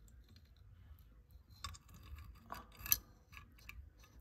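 Faint scattered clicks and scrapes of a plastic round junction box being handled while electrical wires are fed through it, loudest about three seconds in.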